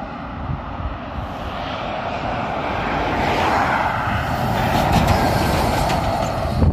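Scania lorry pulling a shipping container driving past at road speed: its engine and tyre noise build steadily as it approaches and are loudest as it passes close by near the end. A car goes by a little before it.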